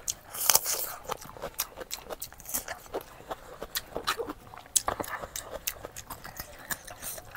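Close-up chewing and mouth smacking, with many irregular wet clicks several times a second.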